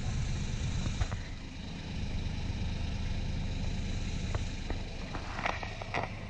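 Sailboat's engine running steadily, motoring the boat along the canal, with a few light clicks near the end.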